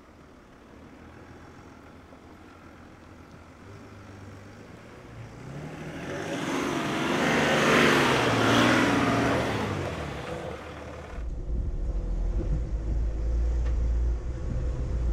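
Mercedes G350 G-Class SUV driving slowly toward and then close past on a dirt track, its engine and tyres on the gravel loudest about eight seconds in. About eleven seconds in the sound cuts to a steady low rumble heard from a camera mounted on the vehicle's side mirror.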